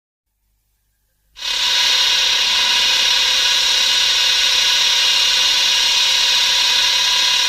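King Ghidorah (1964) film sound effect: a loud, steady hissing noise with a faint steady tone underneath, starting suddenly about a second and a half in and held.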